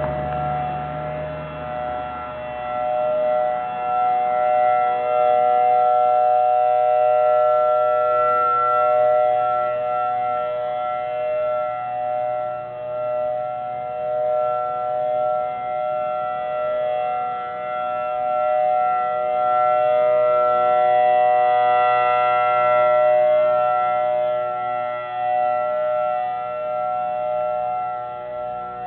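Outdoor civil defense siren sounding a tsunami warning: a steady tone held at one pitch, slowly swelling and fading in loudness.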